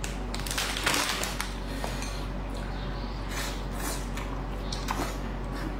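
Close-up eating sounds: chopsticks clicking against a porcelain rice bowl and wet chewing of soft tofu skin, a few light clicks over a steady low hum.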